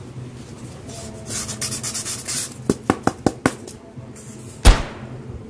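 Styrofoam cutouts being handled and rubbed against each other and the table, a quick scratchy rubbing followed by about five light taps, then one loud thump near the end.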